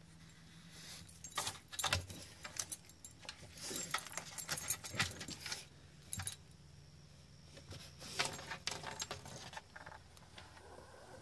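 French bulldog's collar tags and studded collar jingling and clinking in irregular bursts as she noses and paws behind a pipe, after a mouse. The jingling comes in a busy stretch over the first half and again shortly before the end.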